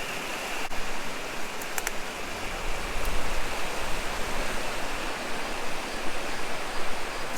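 Small river flowing, a steady rush of water.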